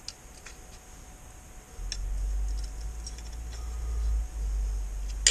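Light metallic clicks and taps of hand work on a lathe carriage as a DRO bracket is fitted and bolted on. A low rumble joins in about two seconds in.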